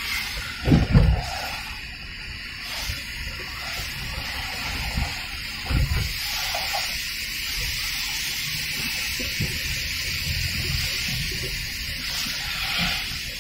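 Steady rain on a car with the hiss of tyres on a wet road, heard from inside the cabin. A couple of short low thumps come about a second in and again near six seconds.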